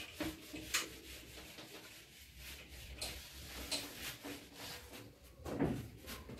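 Whiteboard duster rubbing across a whiteboard in a series of short scratchy wiping strokes, with a soft dull thump near the end.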